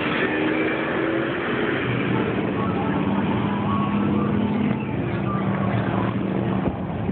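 A vehicle engine running steadily, with a low hum that holds a constant pitch.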